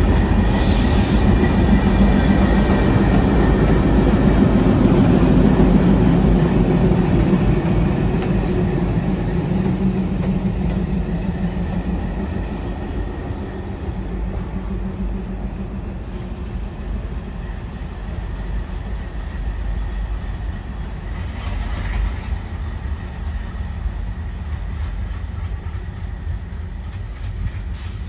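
Two ALCO WDM3A diesel locomotives, each with a V16 ALCO 251 engine, working a passenger train past: a deep engine rumble with wheels clacking over the rail joints. It is loudest in the first several seconds, then slowly fades.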